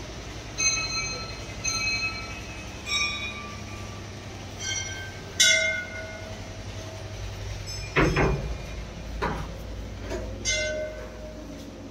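Metal temple bells rung by hand, about seven strikes spread irregularly, each a short ringing tone at its own pitch that fades within a second. A couple of dull knocks come about two-thirds of the way through.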